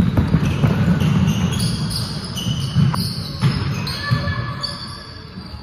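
A basketball bouncing and players running on a hardwood court. Repeated thuds of the ball and feet mix with short high squeaks of sneakers on the floor, busiest in the first few seconds.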